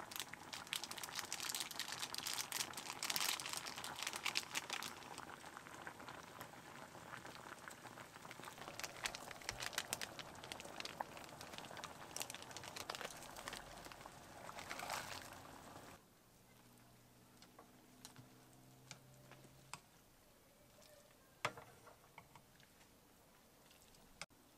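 Water boiling in a camping pot on a portable gas stove, with the crinkle of seasoning sachets being emptied into it. About 16 s in the sound drops suddenly to a faint low hum with an occasional click.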